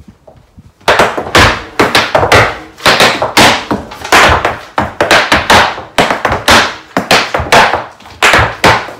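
Irish dance hard shoes striking a hard floor in a fast, uneven run of loud taps and stamps, starting about a second in.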